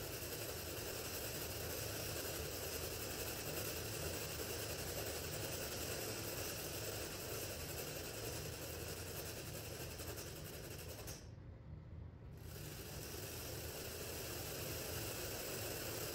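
Oat Foundry split-flap display with many flaps flipping at once in a dense, continuous clatter as it runs its top-to-bottom animation. The clatter thins out briefly about eleven seconds in, then picks up again.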